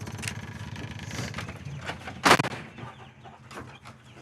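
Old Cushman utility vehicle's engine idling, with chickens clucking. A single loud, sharp sound stands out a little over two seconds in.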